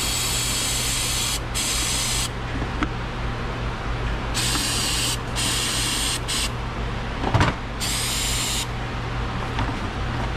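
Aerosol can of mass airflow sensor cleaner sprayed onto the sensor's element to clean off build-up. It goes in several short hissing bursts of about a second each, over a steady low hum.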